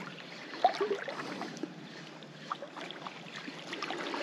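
Shallow seawater lapping and sloshing around a wading angler's legs, with many small irregular splashes and one brief louder blip under a second in.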